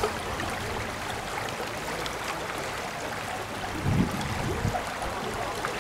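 Water running steadily over stones down a narrow concrete street channel, with a brief low sound about four seconds in.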